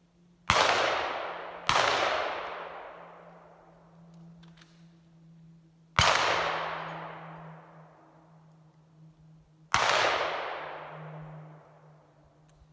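Four gunshots, each followed by a long echoing tail. The first two come about a second apart, then two more at roughly four-second intervals.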